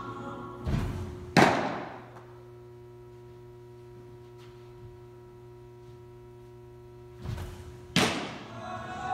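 Two pitches of a baseball: each time a dull thud as the pitcher's stride foot lands, then a loud sharp smack as the ball strikes the catcher's glove, ringing off the bare concrete walls. Between the pitches a steady electrical hum.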